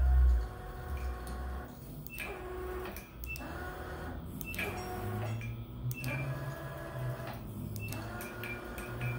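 Prototrak MX2 axis servo drives on a Bridgeport knee mill moving the table through a program step by step. The motors whine in a series of moves of a second or two each, with short pauses and clicks as each move starts and stops.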